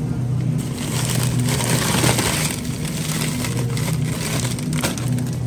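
Plastic bag of frozen dinner rolls crinkling and rustling as it is pulled off a freezer shelf and handled. The rustle is loudest from about half a second in to past two seconds, with another short crinkle near the end, over a steady low hum.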